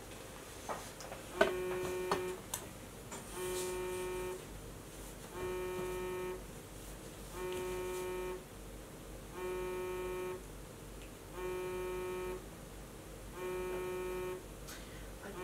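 iPhone signalling an incoming call: a flat buzzing tone about a second long, repeating every two seconds, starting about a second and a half in.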